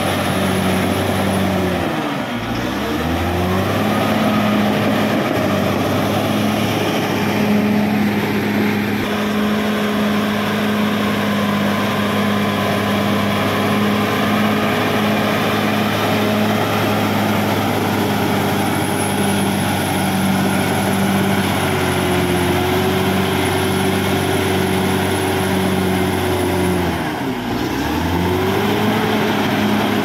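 Caterpillar D6R XL bulldozer's diesel engine running steadily under load as the dozer pushes soil with its blade. The engine note drops and picks back up twice, about two seconds in and again near the end.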